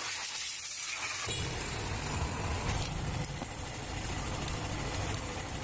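A high hiss, then about a second in a low engine rumble starts and runs on steadily.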